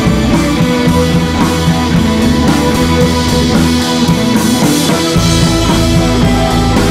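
Background rock music with guitar and drums; the deep bass drops out for a few seconds and comes back about five seconds in.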